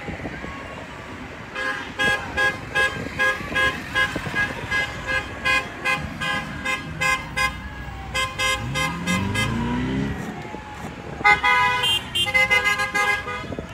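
Car horns honking in quick runs of short toots, about two or three a second, stopping briefly and starting again near the end. About two-thirds of the way through, a car's engine revs up as it drives past.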